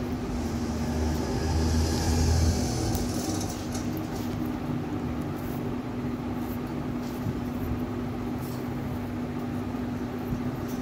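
Steady mechanical background hum holding one constant low tone, with a low rumble that swells over the first three seconds and then fades. A few faint ticks are scattered through it.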